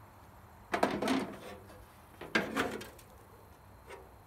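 Steel tailgate of a 1981 Toyota pickup clunking and rattling against its stand as it is tipped, twice, about a second apart, each hit trailing off in a short metallic rattle.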